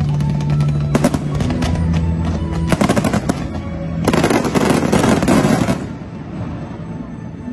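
Aerial fireworks going off over music: sharp bangs about a second in and a rapid string of them around three seconds, then a dense crackling barrage for about two seconds before it eases off.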